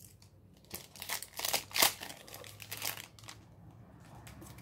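Foil wrapper of a Score football trading card pack being torn open and crinkled. It makes a run of sharp crackles, loudest about two seconds in, that die down after about three seconds.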